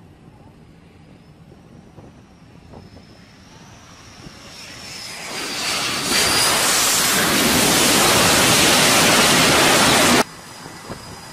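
Twin-engine F/A-18 fighter jet landing on an aircraft carrier deck: a faint, wavering engine whine grows into a rising roar as the jet comes in, jumps in loudness at touchdown about six seconds in, and holds as a loud, steady jet roar before cutting off suddenly near the end.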